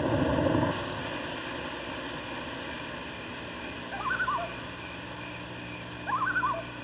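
An animal calling twice, each call a quick run of a few falling notes, about four and six seconds in, over a steady high-pitched whine that begins under a second in.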